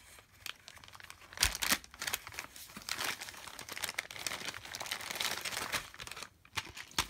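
Clear plastic packaging bag crinkling and rustling as it is handled and pulled open, with a couple of sharp crackles about a second and a half in.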